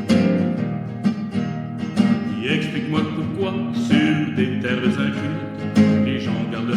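A song: acoustic guitar playing with a singer's voice in French.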